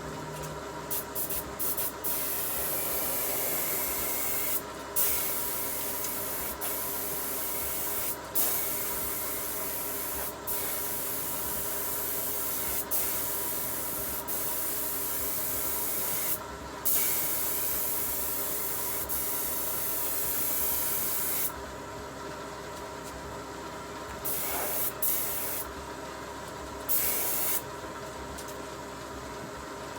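A bodywork tool working on a truck's bare steel bed panel: a loud, steady hiss that stops and restarts every few seconds, over a steady hum.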